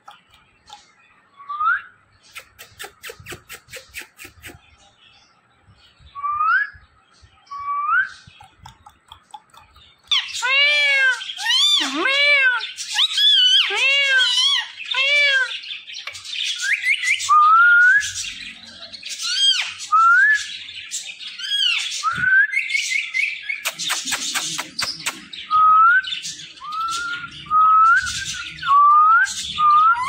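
Indian ringneck parakeet calling: a few short rising whistles at first, with a brief run of rapid faint clicks, then from about ten seconds in a loud string of arched squawks followed by many quick rising chirps.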